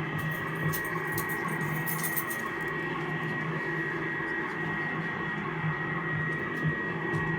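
Steady electronic hum with a constant high whine and a low wavering drone over hiss, with crackling clicks during the first couple of seconds.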